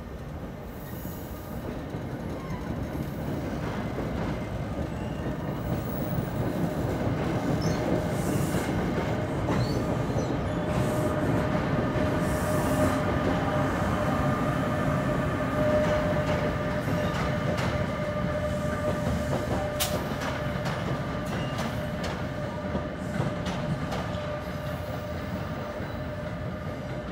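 NJ Transit electric commuter train pulling out and running away down the line, with a steady whining tone over the rumble of the wheels. It builds to its loudest about halfway through, with scattered rail clicks later on, then fades as the train recedes.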